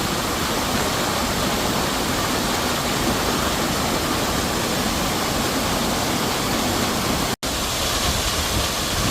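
A waterfall rushes steadily, as a dense, unbroken roar of water. The sound cuts out for an instant about seven seconds in.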